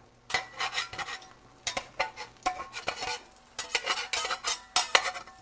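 Metal spatula scraping and sliding across the very smooth cooking surface of a 1940s Lodge cast iron skillet, working under frying eggs in a run of short, irregular strokes.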